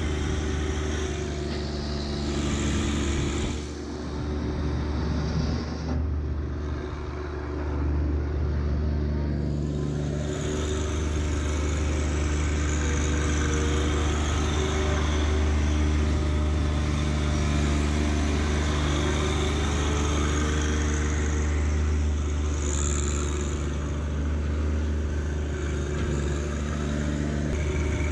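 John Deere 1025R subcompact tractor's three-cylinder diesel engine running steadily, dropping in level briefly a few seconds in.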